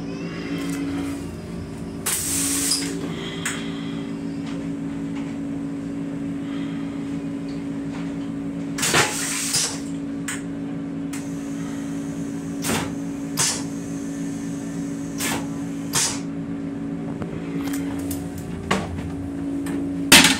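Inside a rail coach's small metal restroom: a steady hum with scattered knocks and rattles, and two short hisses about two and nine seconds in. Near the end the toilet's plastic lid is lowered and clacks shut, the loudest sound.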